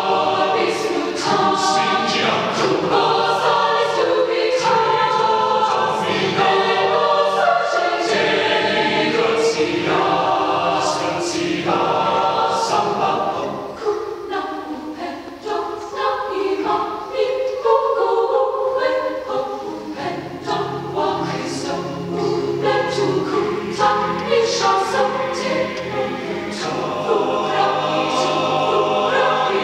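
High school concert choir singing, many voices together, growing softer for a few seconds about halfway through and then swelling again.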